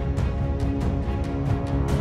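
Background music with held tones over a quick, steady beat.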